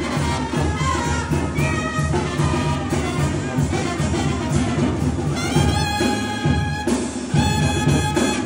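Music with brass instruments over a steady low beat, moving into long held brass chords about five seconds in.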